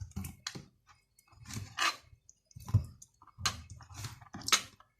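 A knife slicing cleaned sheep tripe into thin strips, a run of about six short, wet, squishy cuts.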